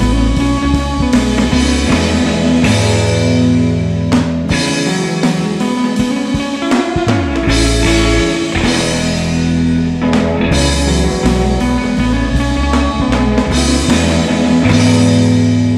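Psychedelic indie rock recording in an instrumental stretch: a drum kit keeping a steady beat under electric guitar and bass, with no singing.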